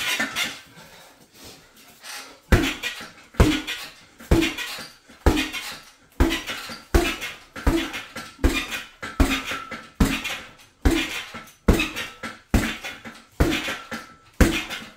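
A person exercising: a steady series of thuds, about one every 0.8 seconds from a couple of seconds in, each joined by a sharp breath.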